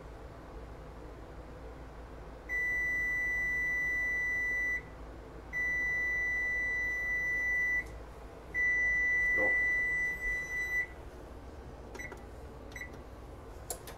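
Electric range's oven timer going off when the 30-minute bake time runs out: three long, steady, high beeps of about two seconds each, with short gaps between them. Near the end, two short beeps come from the control panel's buttons being pressed to silence it.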